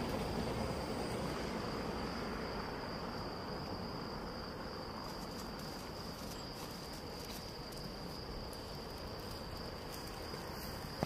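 Crickets singing in one unbroken high, steady trill over a faint background noise that slowly fades.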